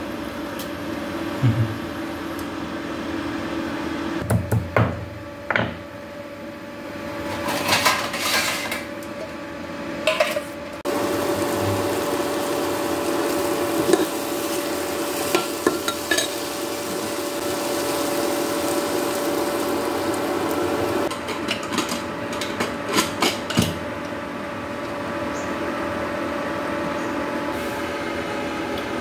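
Metal spoon clinking and scraping in a pressure cooker while stirring spices and vegetables frying in oil, over a steady hum. A louder sizzle sets in about eleven seconds in and drops back about ten seconds later.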